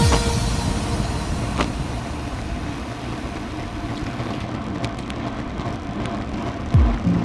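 Wind rushing over the microphone and tyre noise on asphalt from a road bike riding in a group down a gentle descent, easing a little as the bike slows, with a few faint clicks. Music comes back in near the end.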